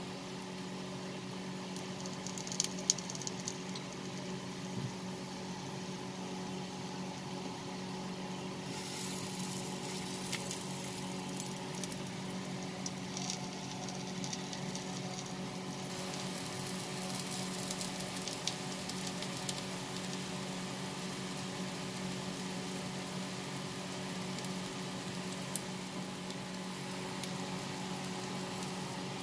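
Batter-coated bread pieces frying in shallow hot oil in a pan: a steady sizzle with scattered crackles, over a steady low hum.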